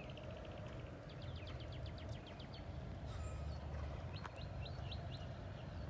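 Birds calling: a short fast trill at the start, then a run of about a dozen quick falling chirps, and a second shorter run of chirps near the end, over a steady low rumble.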